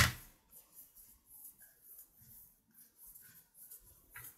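Faint rustling and soft scratching of thick yarn being worked with a metal crochet hook while double crochet stitches are made, with one brief sharp sound right at the start.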